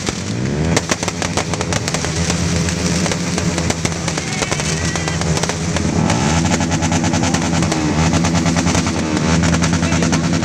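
Loud music with drums, mixed with many sharp crackles and clicks.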